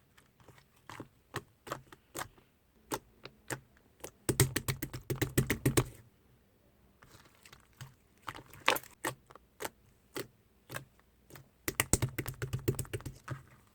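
Mousse-style slime being squeezed and poked by hand: scattered sticky clicks and pops, with a burst of rapid crackling about four seconds in and another near the end.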